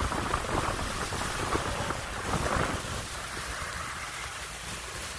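Wind buffeting the microphone over the rush of water and the engine rumble of a sportfishing boat under way. The lower rumble eases about three seconds in.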